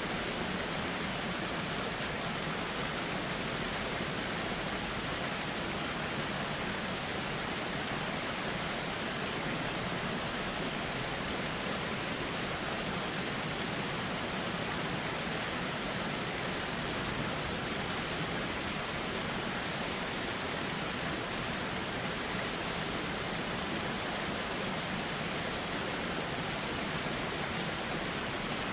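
River water flowing steadily: an even, unbroken rushing.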